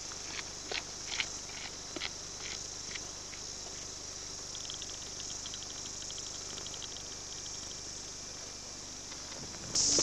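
Steady, high-pitched insect chorus in bush, with a few light clicks in the first three seconds and a fast run of ticks from about four and a half to seven seconds in. Near the end the insect sound suddenly becomes much louder.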